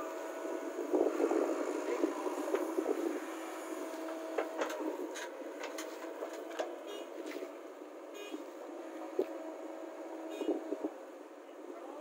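JCB 3DX backhoe loader working: its engine runs steadily under hydraulic load while the bucket tips soil into a steel dump-truck body and swings back to dig, with scattered knocks and clatter, busiest in the first few seconds and easing off later.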